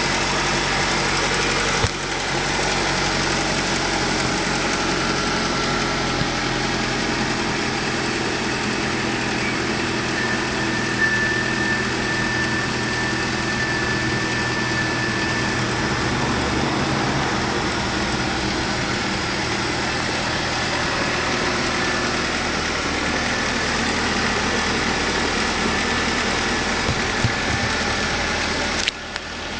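Ford Mondeo car engine idling steadily, with a thin high whine that comes in about ten seconds in and holds. The level dips briefly just before the end.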